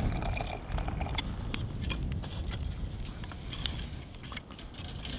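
Hot water poured from a pot into a steel camping mug, ending about a second in. Then a wood campfire crackling, with scattered sharp pops over a low rumble of wind on the microphone.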